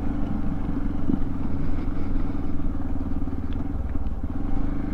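Motorcycle engine running steadily as the bike is ridden.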